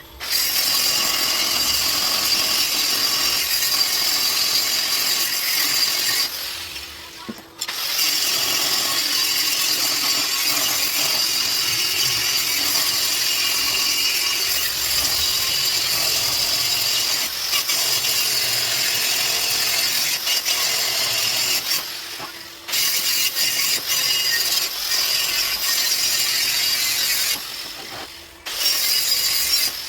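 Electric angle grinder grinding metal, a steady loud whine and rasp that eases off briefly three times.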